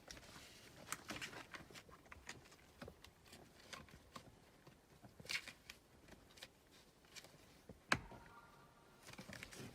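Faint rustling and light clicks of a wiring harness and plastic plug being handled, with one sharp click about eight seconds in, followed by a faint short ring.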